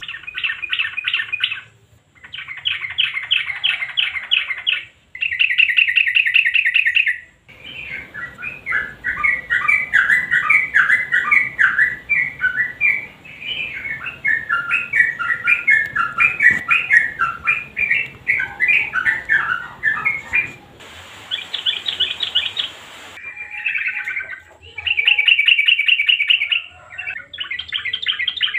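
Yellow-vented bulbul (trucukan) song: short bursts of fast rattling trills, then a long run of varied, bubbling chattering notes lasting about thirteen seconds, then more rattling trills near the end.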